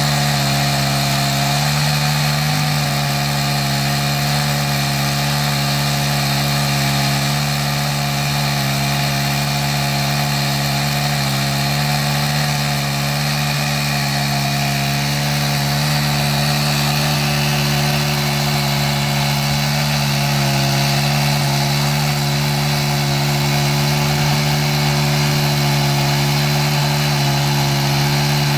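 Chainsaw on an Alaskan chainsaw mill running steadily at high revs, ripping lengthwise through a walnut log to cut slabs.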